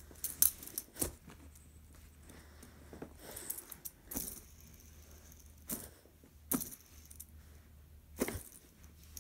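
Small plastic fidget toys being handled: a scattered series of sharp clicks and light rattles, about eight in all, over a faint low hum.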